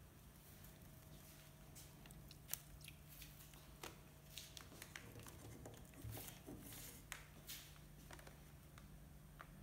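Near silence with faint, scattered light clicks and scratches from a cat moving about inside a wooden crate, the sharpest tick about two and a half seconds in.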